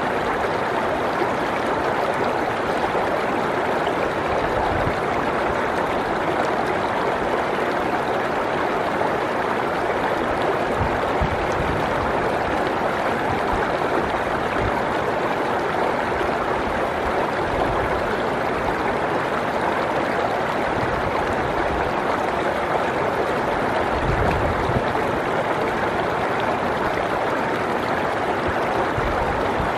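Mountain stream flowing steadily, an even rush of water with a few brief low rumbles.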